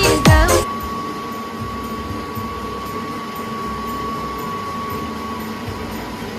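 Sawdust charcoal briquette cutting machine running with a steady mechanical hum and a thin whine, which fades about five seconds in. Electronic music with deep falling bass drops cuts off under a second in.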